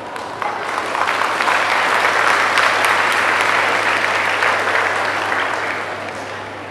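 A large audience applauding, the clapping building about a second in and tapering off near the end.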